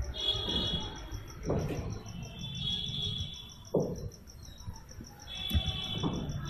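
Insects chirping in the background: a steady, fast, evenly pulsing chirp, with a lower trill that comes and goes in spells of a second or so. A few short soft thumps.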